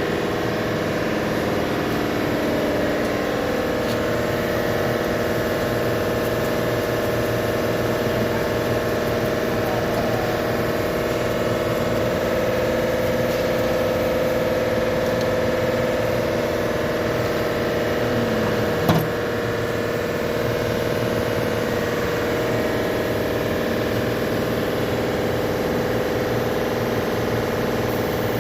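Car engine idling steadily, with one sharp click about two-thirds of the way through.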